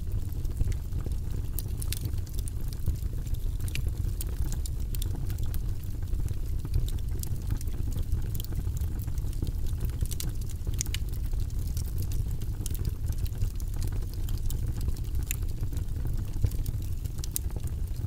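Split wood logs burning in a brick fireplace: a steady low rumble of the fire with frequent, irregular sharp crackles and pops from the wood.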